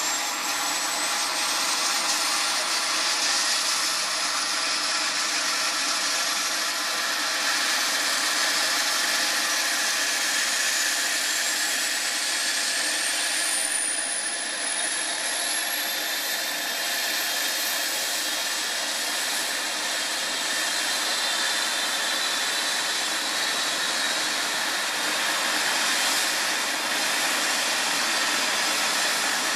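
Eurocopter EC135 rescue helicopter running on the ground, its twin turbine engines and turning rotors giving a loud steady rush. High turbine whines climb steadily in pitch over the first twenty seconds as engine speed rises, then hold steady.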